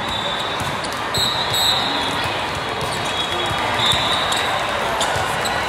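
Ball impacts from volleyball play on the surrounding courts of a large hall, many scattered thuds and smacks over a steady hall din, with a couple of high sneaker squeaks on the court floor about one second in and again near four seconds.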